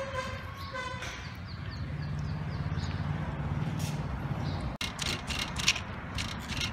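A steady low engine hum for the first few seconds. Then, from about five seconds in, a wooden pestle pounds dried shrimp in a stone mortar, making sharp knocks a few times a second.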